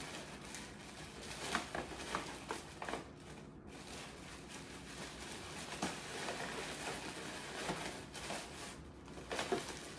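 Tissue paper and gift bags rustling and crinkling as they are handled, with small irregular taps and rustles.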